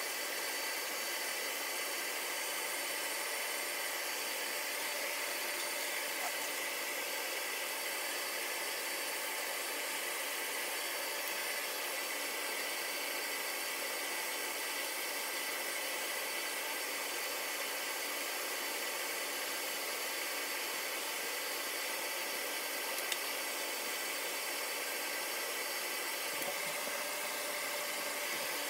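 Cooling fans of running ASIC crypto-mining rigs: a steady, even whoosh of high-speed fans with a few faint steady whining tones in it.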